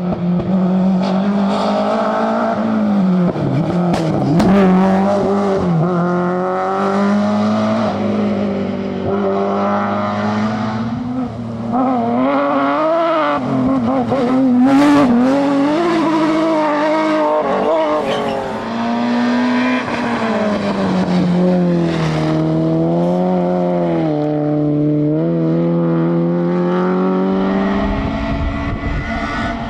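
Rally car engine revving hard, the pitch climbing and dropping again and again with gear changes and lifts off the throttle.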